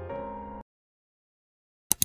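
Soft piano background music that cuts off abruptly just over half a second in, followed by silence and then two sharp clicks in quick succession near the end.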